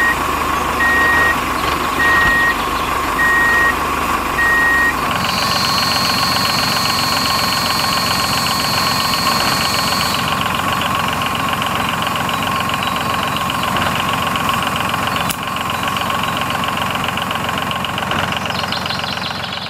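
Small motor of a DIY mini tractor wood saw running with a steady whine. Five short, evenly spaced beeps sound over the first five seconds; then the sound changes and a higher steady whine joins for about five seconds.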